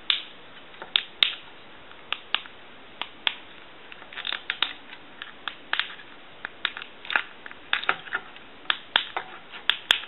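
Keys of a TA-1042A military field telephone's touch-tone keypad being pressed one after another, each press a short sharp click, about two a second at an uneven pace, as the digits are dialed through to test the redesigned keypad board.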